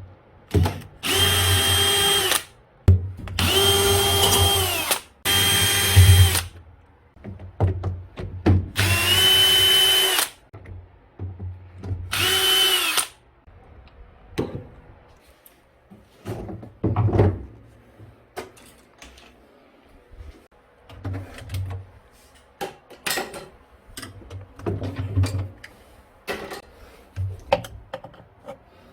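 A power drill-driver runs in five short bursts of a steady whine, driving out screws while a top-loading washing machine is taken apart. Scattered clicks and knocks of parts being handled follow.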